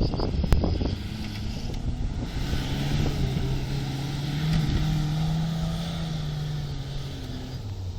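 Off-road vehicle's engine pulling under load, its note rising a little and then holding steady for about five seconds, with a few knocks and bumps in the first second.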